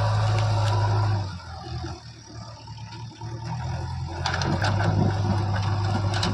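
Heavy machine's diesel engine running at a steady note. It falls away for a couple of seconds near the middle, then comes back, with a few sharp clicks in the second half.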